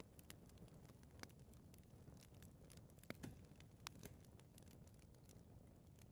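Faint fireplace fire: scattered sharp crackles and pops, roughly one a second, over a low steady rumble of burning flames.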